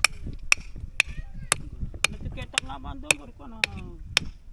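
Machete blade striking spider conch shells to break them open for the meat: sharp hard knocks at a steady pace of about two a second.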